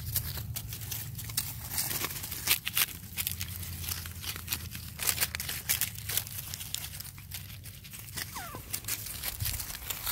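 Dry grass and fallen leaves rustling and crackling in quick, irregular snaps as Pomeranian puppies scramble about on them and are handled, with a brief faint squeak about eight seconds in.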